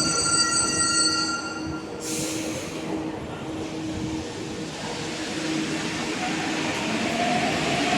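Santiago Metro trains at a station platform: a high-pitched squeal of several steady tones that stops about two seconds in, a short sharp hiss of air, then the rumble of a train building up with a rising whine near the end as it gathers speed.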